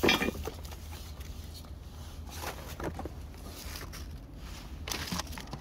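Faint handling noises: light knocks, scrapes and rustles of discarded items and bags being picked through, over a low steady background rumble, with a short louder rustle near the end.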